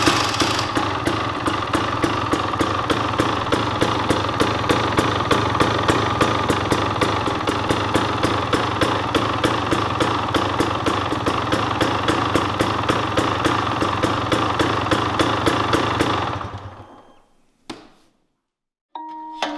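2023 KTM 300 XC TBI two-stroke engine idling steadily through its stock header and stock silencer, then shut off about sixteen seconds in and dying away.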